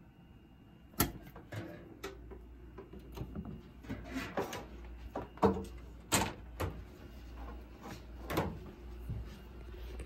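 Handling noise as a vacuum cleaner's power cord is gathered and carried past a door: irregular sharp knocks and clicks with rustling between, starting about a second in, the sharpest near the start and in the middle. No vacuum motor is running.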